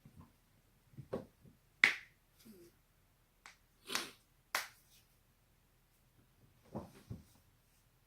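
Joints being cracked: a series of short, sharp pops and cracks, about seven in all, the loudest and sharpest about two seconds in.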